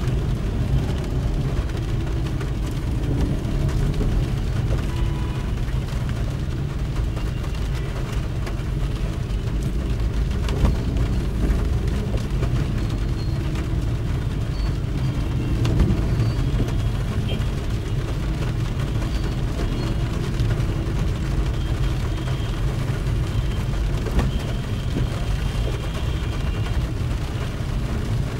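A car driving on a rain-wet road: a steady low rumble of engine and road noise, with an even hiss of tyres on the wet surface.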